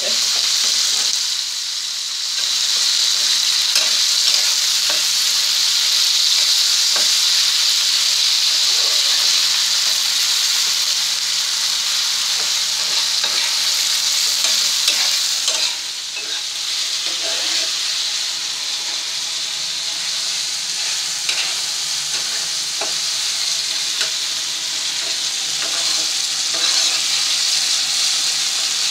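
Chopped tomatoes and onions sizzling steadily as they fry in oil in a pan, with a spoon stirring and scraping through them in faint, scattered ticks. The tomatoes are being fried on medium heat.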